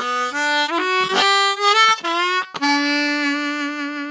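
Diatonic harmonica playing a short phrase of single notes with bent glides in pitch, settling into one long held note just past halfway through.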